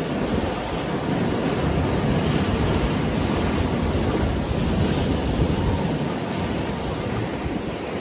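Rough surf breaking and washing along the shore and against a low stone breakwater: a steady rushing that swells and eases with the waves, with a low wind rumble on the microphone.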